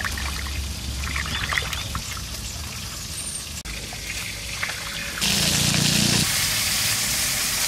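Water splashing and trickling as hands wash tomatoes, green chillies and coriander in a bowl of water. About five seconds in it switches abruptly to a steady, louder sizzle of barramundi (vetki) fish steaks frying in hot oil in a wok.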